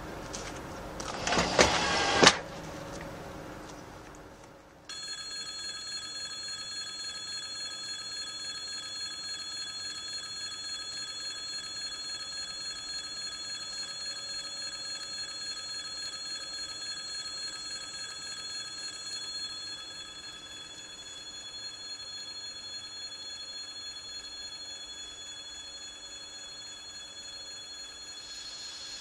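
An electric warning bell starts abruptly about five seconds in and rings on steadily. Under it runs the low steady hum of a 2TE116 diesel locomotive. A brief loud burst of noise comes about two seconds in.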